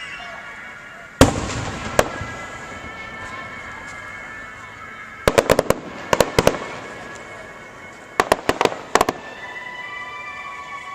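Aerial fireworks bursting: a loud boom about a second in and a smaller one just after, then three clusters of rapid sharp crackling reports, around the middle and near the end. Music plays underneath.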